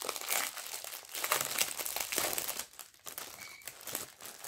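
Plastic packaging of a diamond painting kit crinkling and rustling as it is handled, in irregular crackles with a brief lull about three seconds in.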